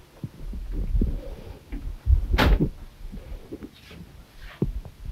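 Footsteps and clunks of someone moving about a small compartment, with one loud knock about halfway through.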